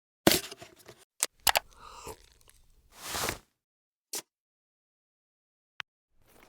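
Edited sound-design effects: a loud click about a quarter second in that trails off over most of a second, a few more sharp clicks, then a short swelling rush of noise around three seconds in. Dead silence falls between them, and after a lone click near the end a new rush starts to build.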